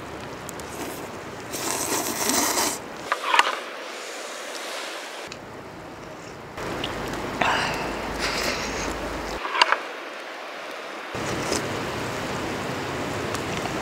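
A person slurping noodles and sipping broth in several irregular bursts, with a couple of short sharp slurps, over a steady outdoor hiss.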